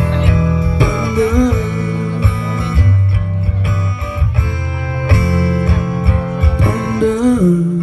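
Live band music through a concert PA: a guitar playing lead lines with bent notes over steady bass and drums, with no vocals.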